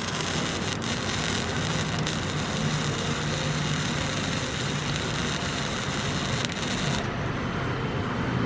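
Wire-feed welder arc frying and crackling steadily as a weld bead is laid on steel tubing, stopping about seven seconds in.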